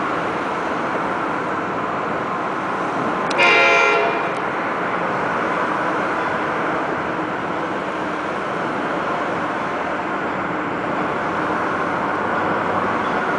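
An approaching commuter train's air horn sounds one short blast about three and a half seconds in, over a steady rushing background noise.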